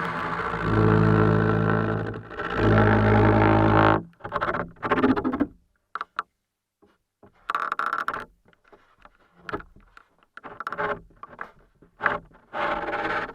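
Creaking picked up through a Schaller Oyster 723 contact pickup: two long, steady, pitched creaks in the first four seconds, then a string of shorter creaks and scrapes with short silences between them.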